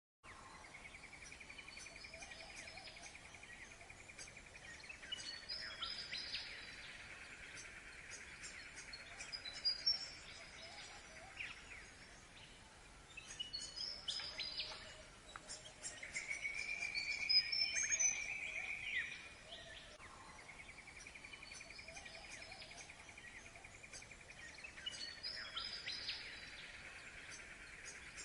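Birds calling over a steady high insect-like trill: short high descending calls recur every several seconds, and a louder sustained call stands out a little past halfway.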